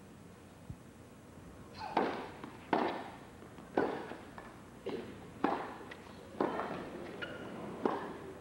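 A tennis rally on an indoor court: sharp racquet hits and ball bounces about once a second, starting about two seconds in, over a low crowd background.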